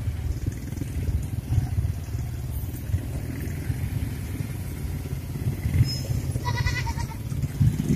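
Motorcycle engines running low in slow traffic, a steady rumble. A goat bleats briefly, with a quavering call, about six and a half seconds in.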